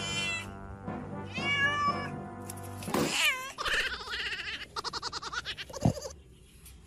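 Domestic cat meowing several times, each meow bending in pitch, followed by a quick fluttering run of short calls near the end.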